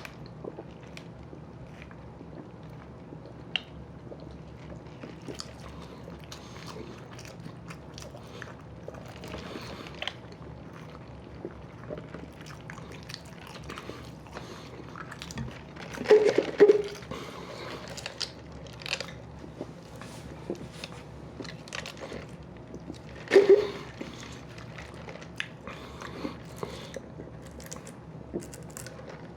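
A person chewing and biting into a fast-food burger and fries close to the microphone, with scattered small mouth clicks. There are two short louder bursts, one about halfway through and one about three-quarters of the way in.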